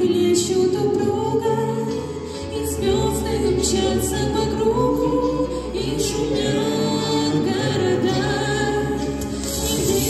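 A male and female vocal duet singing a Russian song into microphones, with musical accompaniment.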